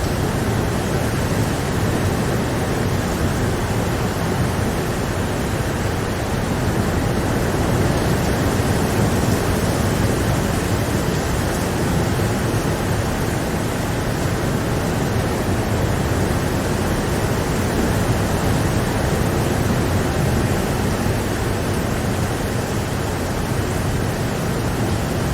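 Steady rain falling as a constant, even rushing hiss, with no separate drops or thunder standing out.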